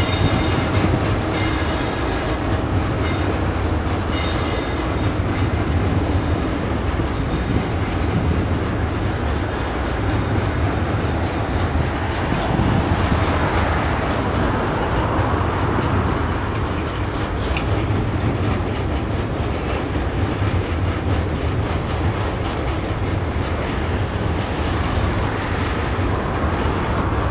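Log wagons of a freight train rolling past, with a steady rumble and clatter of wheels on the rails. Several short high-pitched wheel squeals come in during the first ten seconds or so.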